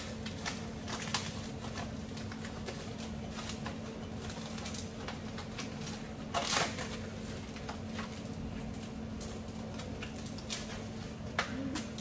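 Glassware and packing being handled by hand: light rustling and small clicks, with a louder knock about six and a half seconds in and another click near the end, over a steady low hum.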